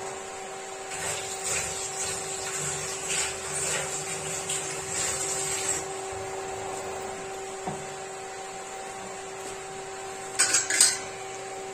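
Gulgule batter fritters sizzling in hot refined oil in a kadhai on low flame, with a fizzy crackle over a steady hum. Near the end comes a brief burst of sharp metal clatter from a spatula against the kadhai.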